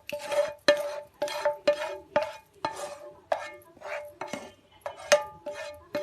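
A metal spoon scraping and stirring in a metal pot or pan, about two strokes a second, each stroke ringing briefly.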